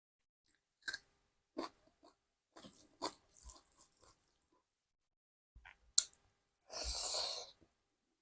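Close-up mouth sounds of eating: chewing with short crunches and wet clicks, then a sharp click and a longer, louder noisy burst near the end.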